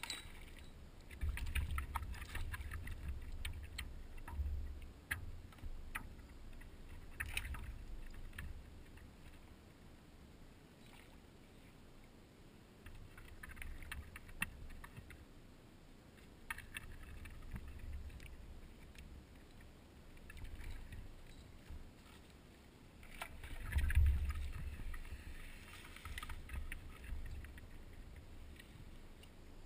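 A paddleboard being paddled: paddle strokes and water sloshing against the board come in uneven spells, with scattered light clicks. The loudest spell comes about 24 seconds in.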